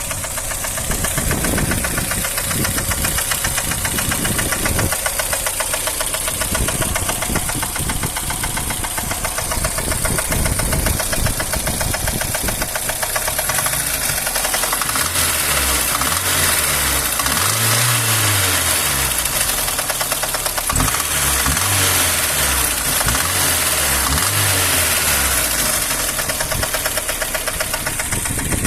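VAZ-2111 inline-four engine running with a fast, regular knocking beat: an engine knock, the fault the recording is meant to show.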